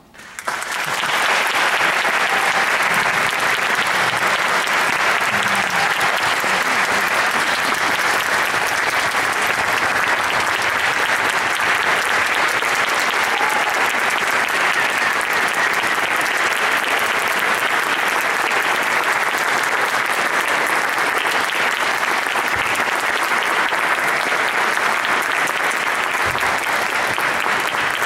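Audience applauding, breaking out about half a second in and holding steady.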